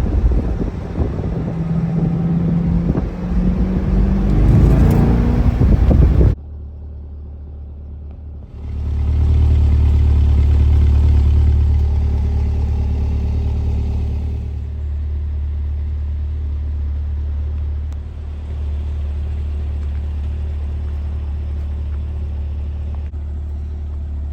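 Chevrolet C8 Corvette's V8 driving with the roof off, wind buffeting the microphone and the engine note rising. About six seconds in the sound cuts abruptly to the V8 running steadily at low revs with a deep hum.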